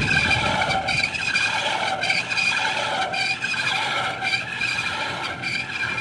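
Air conditioner outdoor unit's fan motor giving off a high-pitched squeal that wavers and pulses about every half second: the noise fault of the motor.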